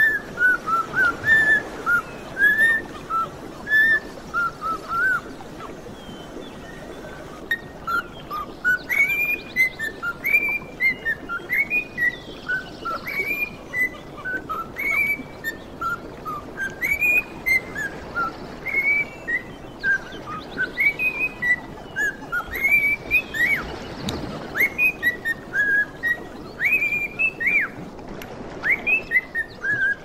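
Cockatiel whistling a song of clear, arching notes that rise and fall, several a second, with a short pause about five seconds in. Faint, high, short chirps of other birds sound behind it.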